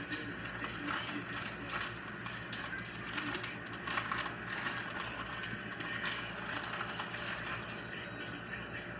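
Crinkling and crackling of a wrapper as a hamburger patty is handled and pulled free, in many small irregular crackles over a steady low hum.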